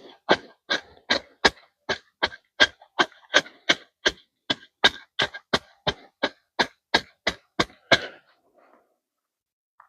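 A hand tool striking hard again and again at an even pace, about three blows a second, each with a short ring; the blows stop about eight seconds in.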